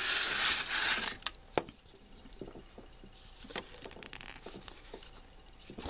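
A loud crinkling rustle for about the first second, then scattered small plastic clicks and taps as the plastic capsule from a Yowie chocolate egg is gripped and twisted open by hand.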